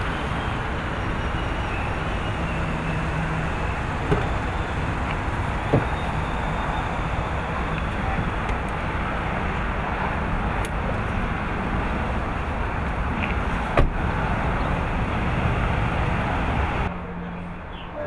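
Steady street noise of traffic and running vehicle engines, with a low hum and three brief sharp knocks. The noise drops off sharply about a second before the end.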